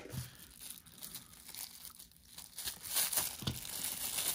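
Plastic bubble wrap crinkling and rustling in hands as it is unwrapped from a small item, louder for the last second or so.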